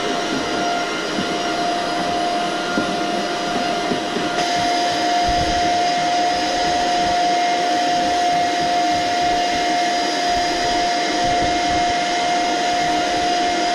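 Vacuum cleaner running steadily with a constant whine while its hose nozzle is drawn over the carpet of a cat scratcher.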